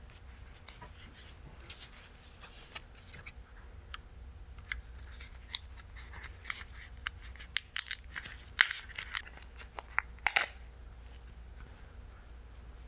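Irregular sharp clicks and snips of small hand work, busiest in the middle, over a steady low workshop hum.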